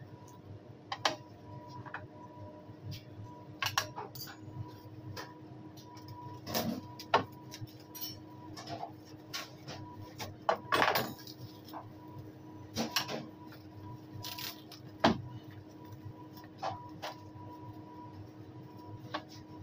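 Scattered short knocks, clicks and rustles of food handling, meat slices and a tray being moved about on a stainless steel counter, over a steady electrical hum of kitchen equipment.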